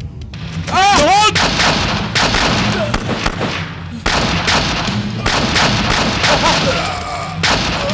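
Heavy gunfire: many shots fired in quick succession, loudest about a second in and pausing briefly about four seconds in before going on.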